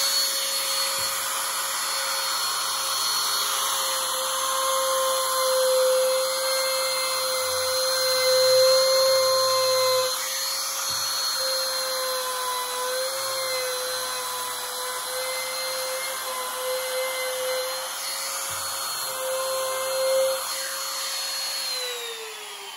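Bosch Colt corded compact router running at its top speed setting with a plunge bit, carving a freehand groove into a wooden board: a steady high whine whose pitch dips slightly now and then as the bit bears into the wood. Near the end it is switched off and the whine falls in pitch as the motor spins down.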